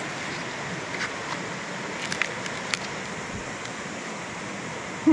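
Shallow stream water flowing: a steady rush, with a few faint ticks about two seconds in.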